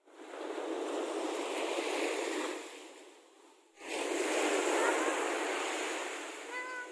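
Sea surf washing onto the shore in two surges. The first swells and fades over the first three seconds; the second comes in abruptly about four seconds in.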